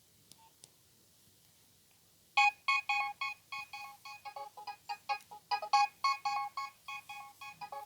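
Nokia 3120 mobile phone ringtone starting about two and a half seconds in, after a near-silent pause with two faint clicks: a fast run of short, bright electronic notes in a repeating melody.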